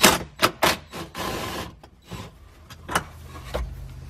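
Hand tool and plastic dash parts clicking and knocking while a bolt is worked loose behind a truck's dashboard, with a short scraping rub about a second in. A faint low hum comes in near the end.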